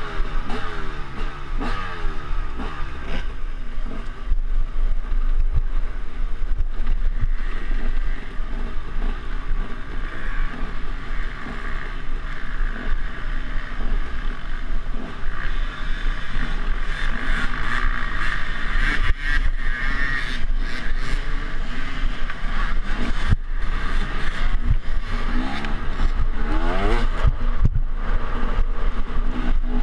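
Off-road motorcycle engine under hard riding, its revs climbing and dropping again and again as the throttle is worked and gears change, with scattered knocks and clatter from bumps along the trail.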